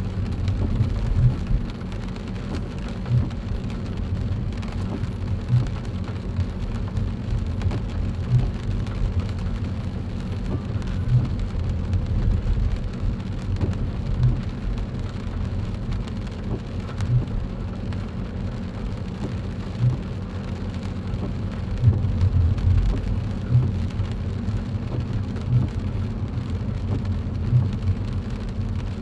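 Car driving in the rain, heard from inside the cabin: a steady low rumble of tyres on the wet road under a hiss of rain, with a short low thump every two to three seconds.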